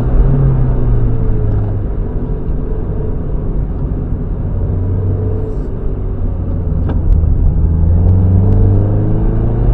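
Mazda MX-5 NB's 1.8-litre four-cylinder engine under way on track, recorded onboard. The engine note falls as the car slows over the first few seconds, then climbs again from about seven seconds in as it accelerates, over a steady low rumble.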